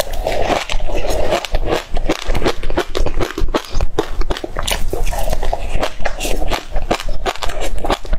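Close-miked crunchy chewing: a mouthful of food coated in black grains being bitten and chewed, a dense run of irregular sharp crackles and crunches several times a second.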